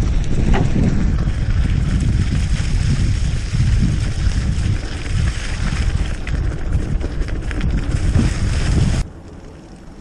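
Wind buffeting the microphone, a loud rushing roar that drops away suddenly about nine seconds in.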